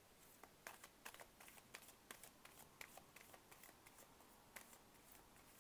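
Faint shuffling of a tarot deck in the hands: an irregular scatter of soft card clicks and flicks, thicker in the first few seconds.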